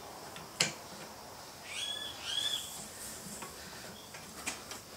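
A single sharp metal click from steel blacksmith tongs being worked in a bench vise about half a second in, followed by two short high chirps around the two-second mark and a couple of faint light ticks near the end.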